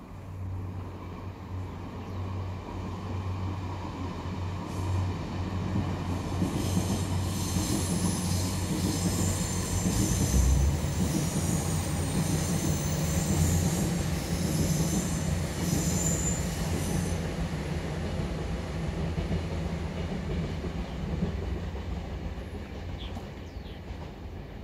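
A train passing out of sight: a low rumble builds for about ten seconds and slowly fades, with high-pitched wheel squeal on the rails from about six to seventeen seconds in.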